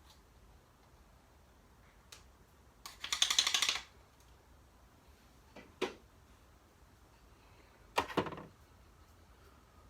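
Handling sounds from vacuum parts and tools: a click, then a quick rattle of many fast clicks lasting under a second, then a knock and, about eight seconds in, a short clatter.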